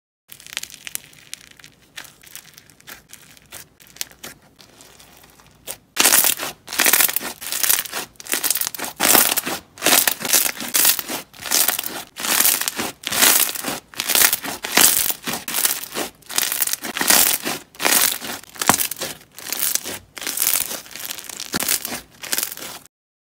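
Thick, crumbly textured slime squeezed and pressed by hand, crackling and crunching in repeated presses about two a second. It is soft for the first few seconds and much louder from about six seconds in, then stops shortly before the end.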